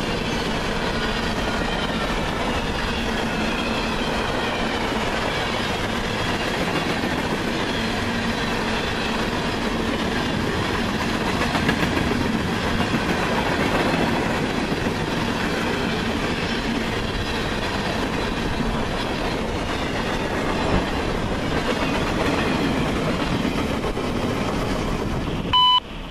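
Freight cars of a CSX manifest train, covered hoppers and gondolas, rolling past at speed: a steady rumble and rattle of steel wheels on the rails, with faint drifting squeals. Just before the end the train noise cuts off abruptly and a short, loud electronic beep sounds.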